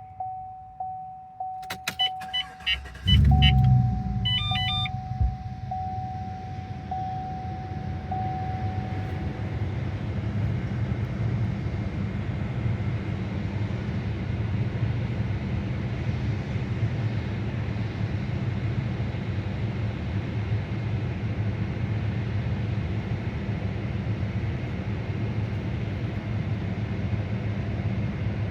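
A car is started. A warning chime dings steadily and a few clicks and beeps sound. About three seconds in the starter cranks briefly and the engine catches. It then idles steadily, while the chime keeps dinging for several more seconds and then stops. This is the start the owner records to show a cylinder-2 misfire.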